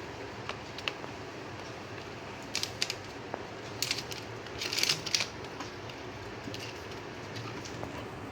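Kittens wrestling: short scratchy rustles and light clicks of paws and claws in a few quick clusters, the busiest about halfway through, over a steady low background hum.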